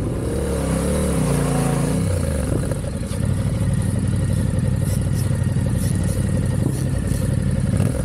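Adventure motorcycle engine under way, its pitch rising and falling with the throttle over the first couple of seconds, then running steadily.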